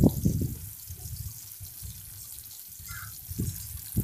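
Chopped onions sizzling in hot oil in a metal kadai: a steady hiss with crackle. A cluster of loud low bumps comes in the first half second, and there are a couple of single knocks near the end.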